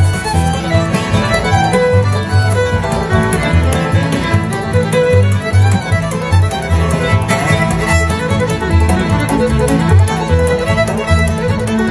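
Instrumental music led by a fiddle over a steady low beat.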